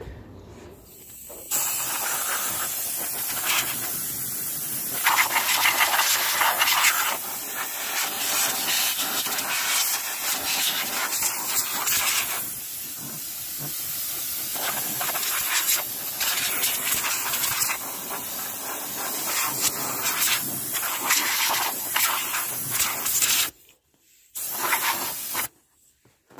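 A loud, steady hiss, like a spray or jet of air, that swells and eases. It cuts off abruptly near the end and is followed by one short burst of the same hiss.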